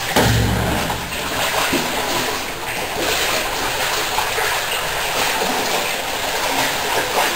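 Water splashing and sloshing as someone wades through a culvert pipe moving a small boat, with a low thump right at the start.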